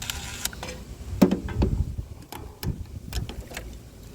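Irregular metal clicks and knocks of a nut being tightened onto a starter solenoid terminal by hand, with some low handling thumps about a second in.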